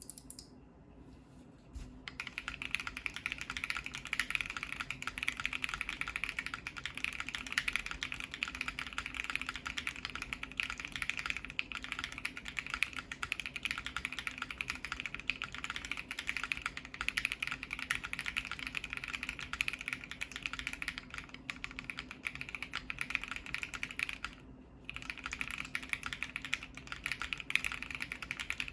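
Typing on a Bakeneko60 custom mechanical keyboard with lubed Ashkeebs Auralite switches on an FR4 plate and Cannonkeys Winter Tundra keycaps. The keystrokes are quick and continuous, beginning about two seconds in, with a brief pause near the end.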